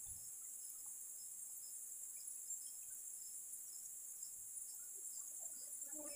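Steady high-pitched insect chorus of tropical forest, with faint short chirps repeating through it.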